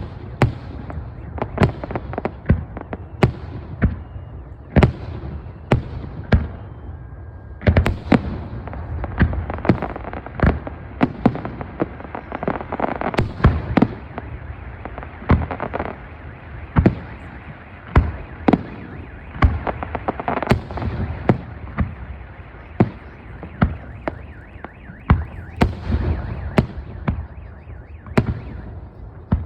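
Fireworks display of aerial shells: dozens of sharp bangs from shells bursting, some overlapping, with a denser stretch of rapid bangs and crackle in the middle.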